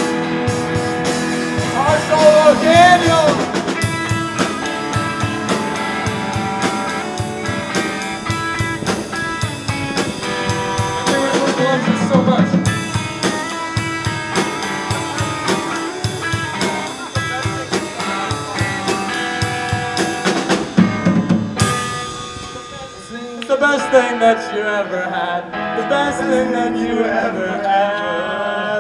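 A small rock band playing live: a drum kit, guitars and sung vocals. The drums drop out about three quarters of the way through, leaving the guitars and voices.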